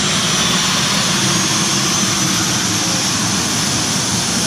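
Jet engine running steadily: an even, loud rush of exhaust with a faint high turbine whine over it.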